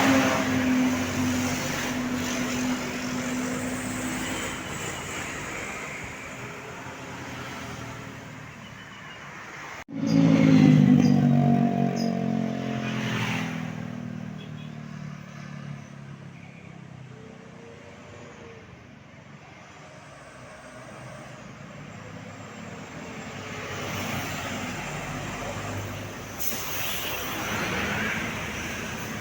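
Tour buses driving past in a convoy, engines running with road noise. About ten seconds in, a loud pass brings several held tones that fade away over a few seconds.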